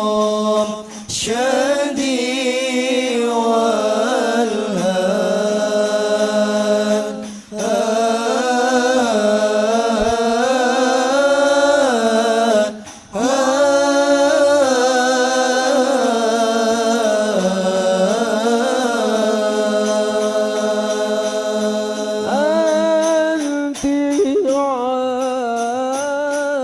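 Sholawat chanted in Arabic in long melodic phrases, with no drums. There are short breaths between phrases about 1, 7 and 13 seconds in.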